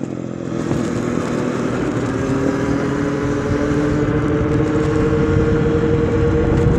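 Electric bike motor whine, a pair of steady tones that climb slowly as the bike gathers speed, over a constant rush of wind and tyre noise.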